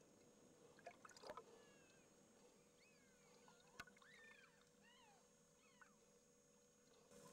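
Near silence of underwater camera audio: a faint steady hum with a few soft clicks and several faint squeaky whistles that glide up and down in pitch in the middle.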